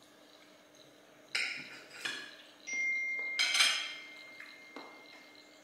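Smartphone message alert: a run of electronic chime notes from about one to four seconds in, including a held tone and, loudest of all, a final ringing chime. Light clinks of cutlery on plates come with it.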